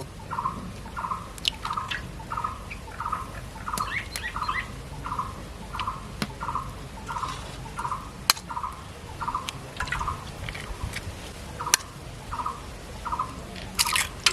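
A bird outside calls one short, hollow note over and over, about twice a second and very evenly. A few sharp cracks and taps sound over it, eggs being broken into a bowl.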